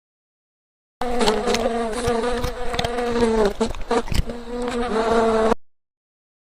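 A flying insect buzzing: a steady, pitched buzz that starts about a second in, wavers and dips briefly past the middle, and cuts off abruptly near the end.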